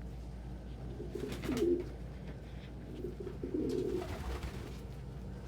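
Domestic pigeons cooing in low, short phrases, twice: about a second in and again near four seconds in.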